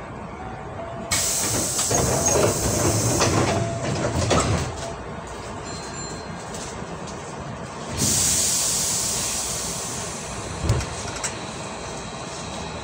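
Hankyu 8000 series train's air-operated doors closing: a sudden hiss of air with clattering knocks for about three seconds. A second hiss of air starts suddenly about eight seconds in and fades away, and there is a single thump near eleven seconds.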